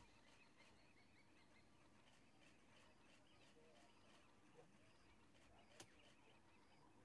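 Near silence: faint outdoor ambience with soft, distant chirping and one small click near the end.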